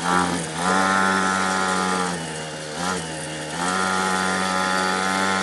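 Small two-stroke mini moto engine running at high, steady revs, easing off for about a second and a half midway with a quick blip of throttle, then pulling back up to steady revs.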